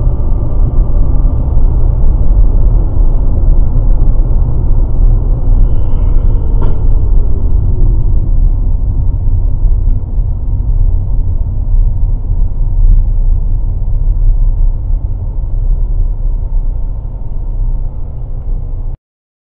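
Steady low rumble of a car's engine and road noise heard inside the cabin through a dashcam's microphone, with one brief click about seven seconds in. The sound cuts off suddenly near the end.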